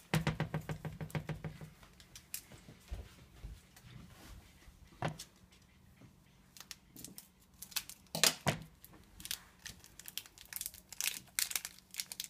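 Crinkling and tearing of a Maggi masala powder sachet being opened and shaken over the pan: a quick run of crackles at the start, then scattered crackles with louder ones about 5 and 8 seconds in.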